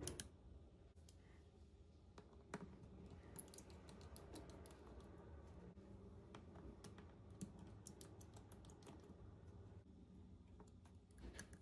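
Faint, irregular small clicks and ticks of a precision screwdriver and tweezers working the tiny hinge-cover screws of a MacBook Pro, over near-silent room tone.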